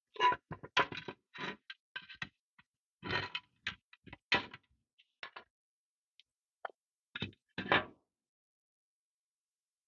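Irregular scrapes, clicks and knocks of a tool digging dirt out of a vintage Tonka toy van's grimy underside. The sounds come in short bursts with pauses between and stop about eight seconds in.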